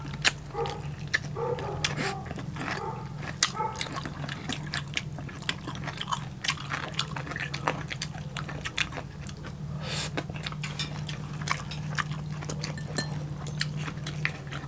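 Close-miked eating of crispy fried pork belly and rice: many sharp crunches and mouth clicks from biting and chewing, over a steady low hum.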